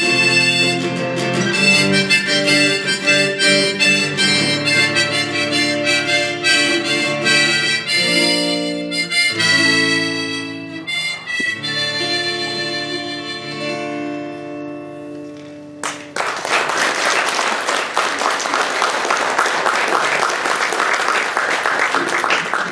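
Harmonica played with strummed acoustic guitar, the instrumental ending of a song, dying away about fifteen seconds in. Then sudden audience applause fills the last seven seconds.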